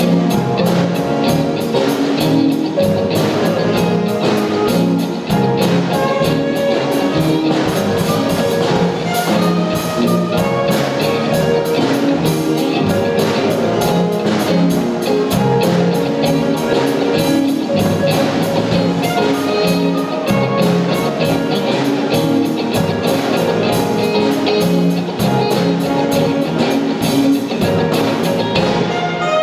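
Live jazz-funk band: an electric bass solo over a drum kit keeping a busy, steady hi-hat groove. The saxophone is not playing.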